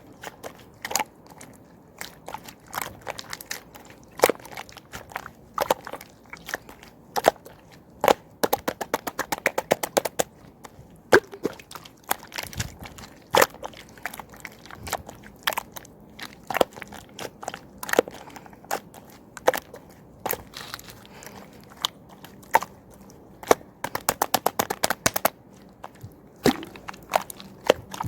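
Clear slime being pressed, poked and stretched by hand, giving irregular crisp clicks and pops as air pockets in it burst. Twice the clicks come in quick rapid runs, about a third of the way in and near the end.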